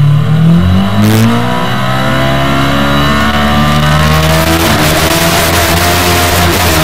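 A 500 cc kart cross engine heard close up from the cockpit, revs dipping and rising on the start line, then climbing hard as the kart accelerates away. About four and a half seconds in the pitch steps and the engine holds at high revs while dirt spatters against the cage.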